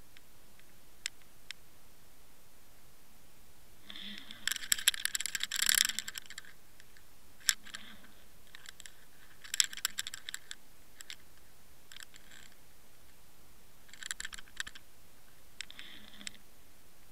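Underwater clicking and crackling: scattered single clicks, and short bursts of rapid crackle a few seconds apart, the longest about four seconds in.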